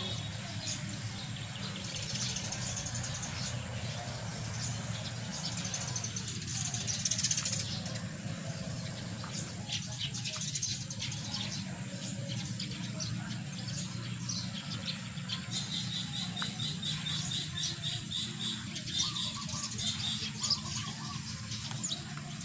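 Gloved hands turning and mixing a dry potting mix of soil and carbonized rice hull in a plastic basin, a crisp rustling and crunching, while birds chirp in the background with a quick run of repeated notes past the middle. A steady low hum runs underneath.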